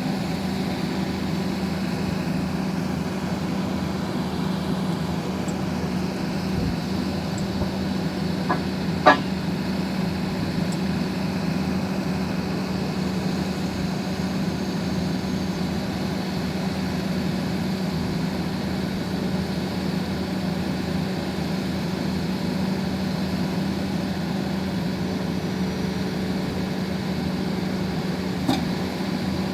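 Engine of an XCMG 6800 horizontal directional drilling rig running steadily with a constant low hum, and a single sharp clank about nine seconds in.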